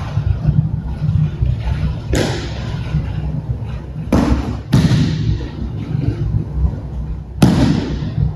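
Sharp slaps and thuds of bodies and hands hitting a training mat as an aikido partner is thrown and pinned: one about two seconds in, two close together around four to five seconds, and one more near seven and a half seconds, over a steady low rumble.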